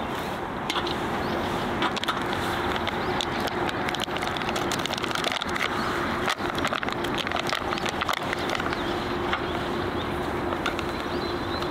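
Coffee beans being ground in a hand grinder: an irregular crunching and clicking over a steady background noise.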